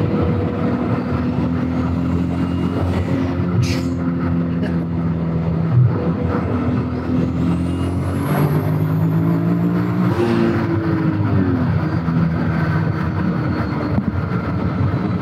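Turbocharged VR6 engine of a VW Golf Mk3 heard from inside the cabin, pulling under load at motorway speed. About seven seconds in, a high turbo whistle rises over a few seconds, then cuts off abruptly as the throttle closes and the engine note drops.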